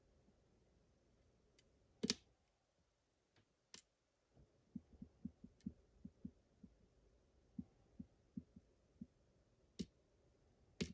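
Faint clicks and soft taps of a lock pick and tension wrench working the pins of a pin-tumbler lock: a sharper click about two seconds in, then a run of soft low taps, two or three a second, through the middle.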